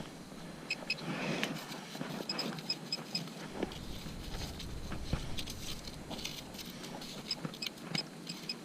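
Minelab CTX 3030 metal detector giving short, high beeps, several in quick succession, as it sweeps over targets in the water. Scattered knocks and water noise run underneath, from the scoop being worked.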